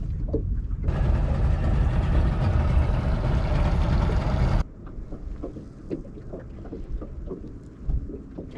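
Motorboat under way with wind buffeting the microphone: a low rumble, with a loud rushing hiss from about one second in that cuts off suddenly a little past halfway, leaving a quieter rumble with scattered light knocks.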